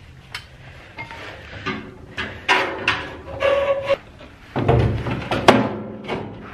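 Clunks and scrapes of pieces being shifted by hand inside the firebox of a homemade steel wood stove: a run of irregular knocks and scraping, the sharpest knock about five and a half seconds in.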